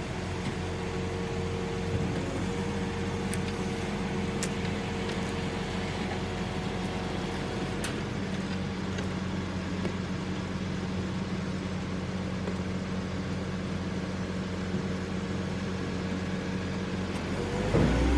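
Diesel engine of a refuse truck running steadily with the hum of the hydraulics driving its truck-mounted crane, which is lifting an underground waste container out of the ground. Near the end the engine speeds up, rising in pitch and getting louder.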